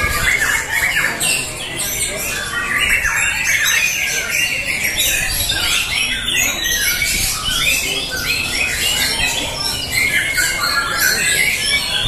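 Many caged white-rumped shamas (murai batu) singing at once, a dense unbroken tangle of overlapping whistles, chirps and trills, typical of birds competing side by side on a contest pole.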